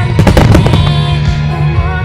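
Music with fireworks bursting over it, part of a starmine barrage timed to the music. A quick run of sharp bangs comes in the first half second or so, then the music carries on with scattered pops.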